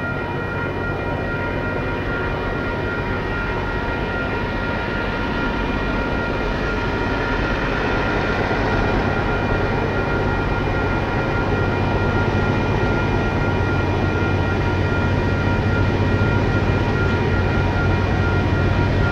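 Three KiwiRail diesel-electric locomotives heading a long, heavy freight train up a steep grade, engines working hard. There is a steady deep rumble with a steady high whine over it, growing slowly louder.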